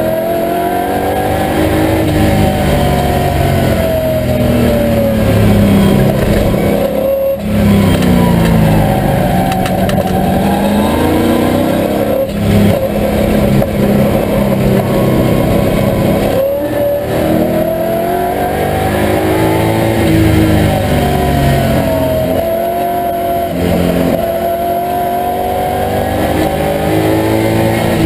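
TVR Tuscan V8's Ford V8 engine heard from inside the cockpit under race load. The revs climb and fall through the gears, with short breaks in the note at the gear changes several times.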